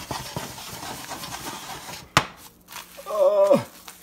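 Omelette being flipped in a frying pan: eggs sizzling with scraping in the pan, a sharp knock about two seconds in, then a short falling groan of dismay near the end as the flip partly fails.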